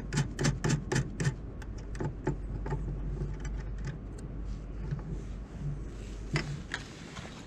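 Small metal clicks and light rattling as a rod holder's rail clamp and its stainless steel machine screws are handled and fitted by hand onto a boat rail. The clicks come quickly in the first second or so, then more sparsely, over a low steady rumble.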